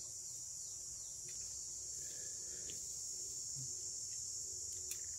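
Insects in the grass buzzing steadily with a high, even drone, with a couple of light clicks near the end.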